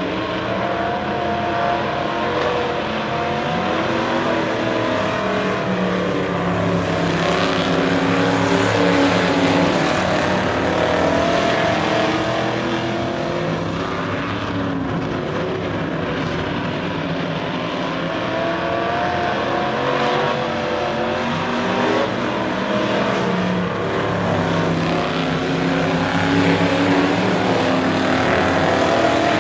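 A pack of stock cars racing on a short oval track, several engines running hard at once. Their pitch rises and falls as the cars brake into the turns and accelerate down the straights, with the overall level swelling a few times as the pack comes past.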